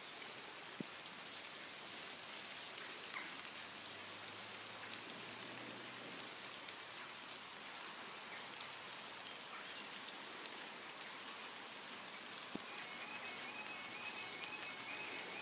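Faint steady outdoor hiss. About five seconds in, a faint low rumble of a distant train running over the points. Near the end, the level crossing's warning alarm starts up faintly as a repeating high tone, as the amber light comes on.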